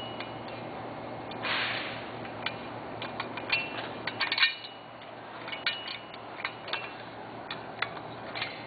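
Metal bolts, nuts and washers clicking and clinking against a metal frame as they are fitted by hand, with a short scrape about a second and a half in and a few brief metallic rings.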